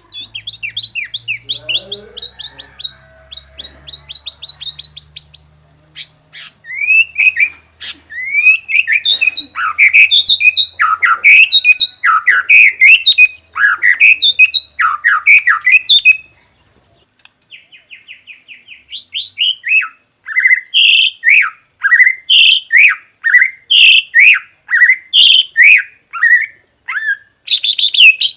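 White-rumped shama singing a long, varied song of rapid repeated notes and changing phrases, in the 'full isian' style packed with mimicked phrases. There is a brief pause just past halfway, then a fast trill and evenly repeated paired notes.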